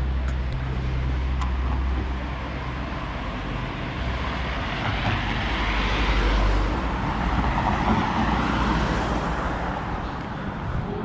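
Urban street traffic, with a low steady engine hum early on and a vehicle passing close about halfway through.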